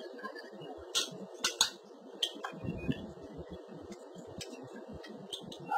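Airliner cabin noise while the aircraft taxis: a low, uneven rumble with scattered light clicks and rattles.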